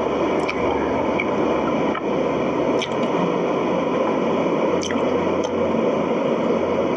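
Steady hissing background noise with a few faint ticks in it.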